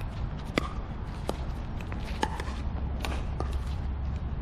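Pickleball paddles striking a hollow plastic ball in a rally: a string of sharp, ringing pocks roughly one a second, over a steady low rumble.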